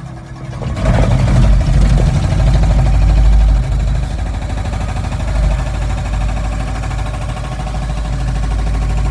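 Komatsu mini excavator's diesel engine running. It picks up sharply about a second in and stays louder for a few seconds, then settles to a steady run.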